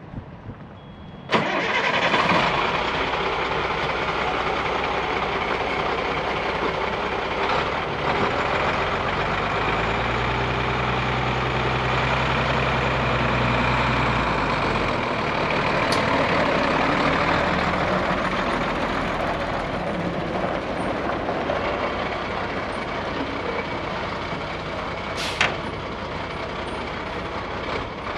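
1996 Kenworth T300 box truck's diesel engine starting about a second in with a sudden burst, then running steadily at idle. Two sharp clicks come later.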